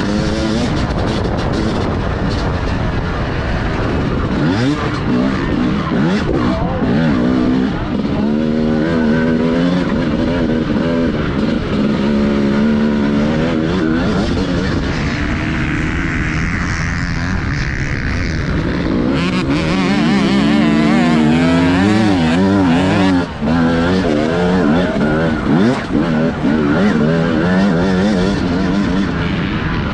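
TM Racing 250 motocross bike engine at racing effort, heard from onboard. Its pitch rises and falls again and again as the throttle is opened and closed through the track's turns and jumps.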